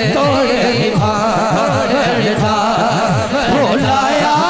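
Punjabi naat being sung: a wavering, ornamented vocal melody over a steady rhythmic backing of low sliding tones, about two a second.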